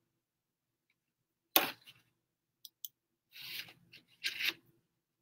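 Handling noise: a sharp knock about a second and a half in, two small quick clicks, then two short spells of rubbing and rustling.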